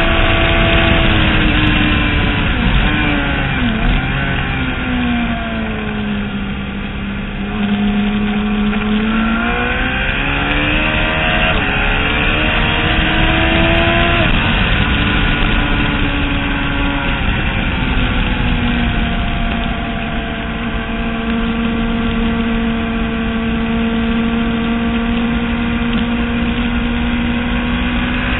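Race motorcycle engine at speed on a track, over a steady rush of noise. The engine pitch falls for a few seconds about five seconds in, climbs back up, dips briefly near twenty seconds, then holds steady at high revs.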